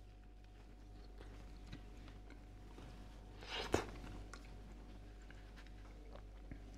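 Quiet chewing of a mouthful of soft, microwaved shortcrust pastry pie, with faint mouth clicks and one louder, sharper sound about three and a half seconds in.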